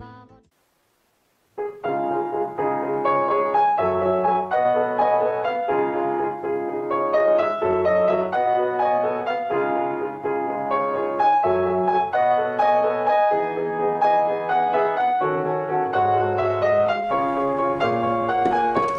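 Silence for about a second and a half, then background piano music: a steady stream of melody notes over repeated bass notes.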